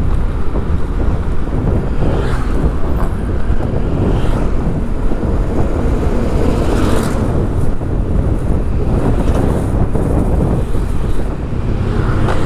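Steady low rumble of city traffic and engine noise heard while riding along the road, with wind on the microphone. It swells a couple of times as vehicles pass.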